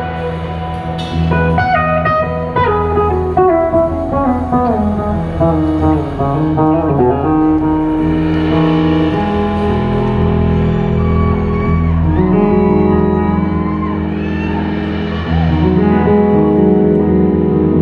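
Live blues-rock band playing, led by electric guitar: a run of notes stepping down over the first several seconds, then held chords over a steady low bass with gliding slide-guitar notes.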